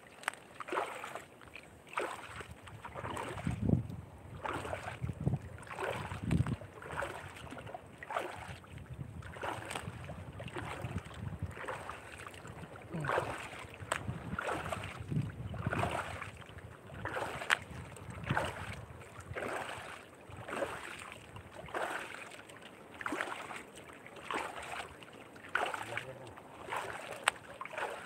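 Water splashing and lapping against the hull and bamboo outrigger of a small canoe, in a loose rhythm of about one splash a second, with no engine running.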